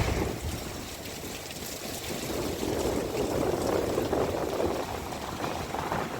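Cyclonic storm wind gusting hard and buffeting the microphone: a rushing roar with low rumbling that swells and eases, dipping about a second in and building again after.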